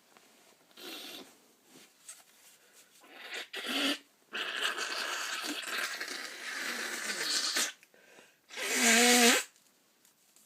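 A person in a sneezing fit: gasping breaths build up, then a few seconds of steady rushing breath noise, then one loud voiced sneeze near the end.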